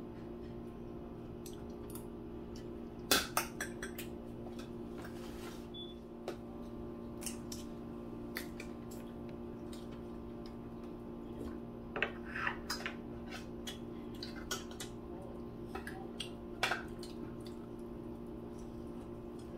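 Forks clinking and scraping against plates and aluminium foil food trays while eating, as scattered sharp clicks, in a cluster about three seconds in and another around twelve seconds. A steady low hum runs underneath.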